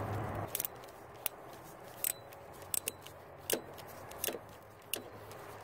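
Ratchet with a 12 mm socket on an extension being worked on the timing chain tensioner's spring screw, giving a scattered series of separate sharp clicks as the screw is loosened.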